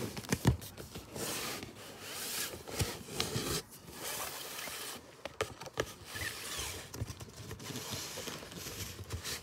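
Cardboard model box being handled and opened by hand: irregular rubbing and scraping of cardboard, with a few light knocks.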